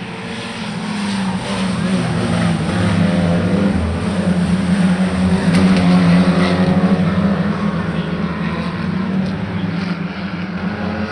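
A motor vehicle's engine running at a steady pitch, growing louder to a peak a little past halfway and then fading somewhat, as it passes close by.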